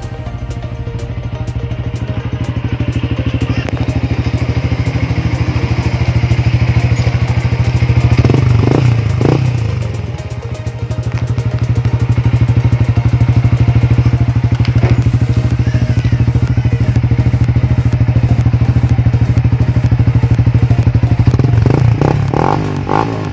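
Yamaha Sniper 150's single-cylinder four-stroke engine running through a Mody5 aftermarket power pipe exhaust, heard close at the muffler outlet as a steady pulsing exhaust note. It grows louder over the first several seconds, dips briefly about ten seconds in, then holds steady.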